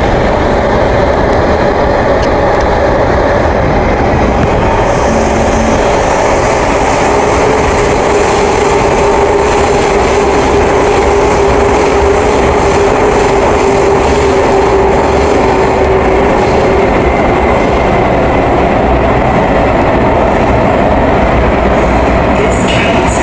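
Kawasaki C151 metro train heard from inside the passenger car while running in tunnel: a loud, steady rumble of wheels and motors. A steady tone holds over it for about ten seconds in the middle.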